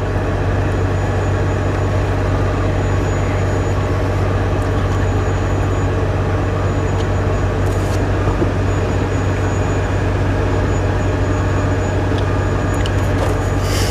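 Steady low hum of an idling truck's diesel engine, unchanging throughout.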